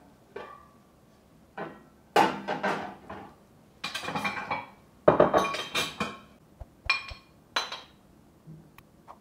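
A metal lid lifted off an aluminium cooking pot, then a metal ladle clinking and scraping against the pot and a plate as food is served out: about seven separate clinks, each with a short ring.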